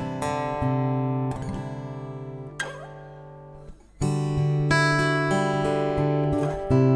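Takamine PTU200 SP-K dreadnought acoustic-electric guitar being played: chords are strummed and left to ring, one fades almost out just before the middle, then firm strumming picks up again about four seconds in.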